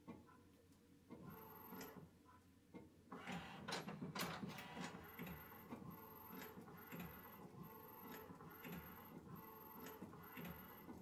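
Epson EcoTank ET-8550 inkjet photo printer printing quietly, its print head shuttling across the sheet with a soft whir and tick that repeats about every 0.6 s. The first three seconds are quieter, then a few louder clicks and whirs come about three to four seconds in before the steady rhythm settles.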